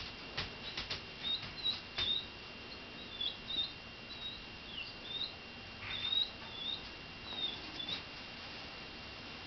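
Pomeranian puppy whimpering in a string of short, high squeaks, a dozen or so, as it tries to get into the bathtub. Its claws click a few times against the tub early on.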